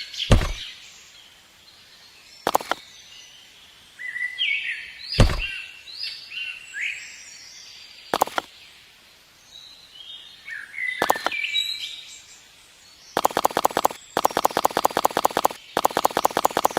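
Small birds chirping in short bursts, with a few separate sharp knocks. In the last few seconds a fast, even clicking rattle comes in, stopping briefly twice.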